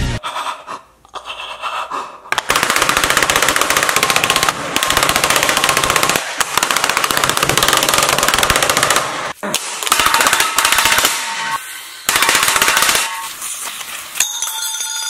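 A smartphone scrubbed with a scouring pad and then struck over and over with a hammer on a wooden board: a fast, dense run of strikes that sounds like machine-gun fire, with a few short breaks.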